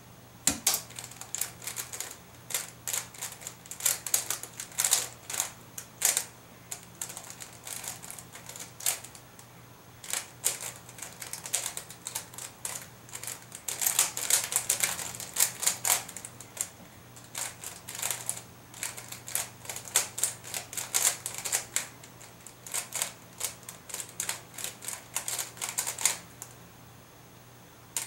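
Square-1 puzzle being speedsolved by hand: rapid plastic clicks and clacks of its layers turning and slicing, in quick irregular flurries. The turning stops for about two seconds near the end, then the clicking resumes.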